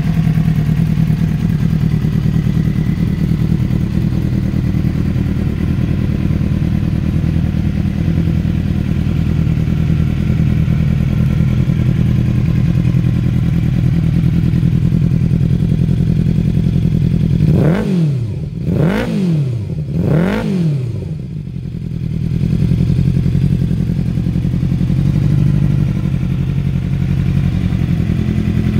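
2008 Suzuki GSX-R600's inline-four engine idling steadily. Past the middle it is revved three times in quick succession, each blip rising and falling in pitch, then it settles back to idle.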